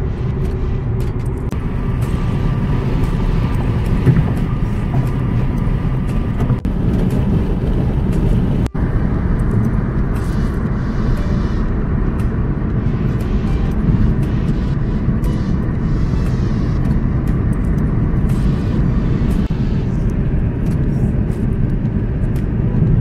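A car driving at highway speed, heard from inside the cabin: a steady, loud low road rumble. It cuts out for an instant about nine seconds in.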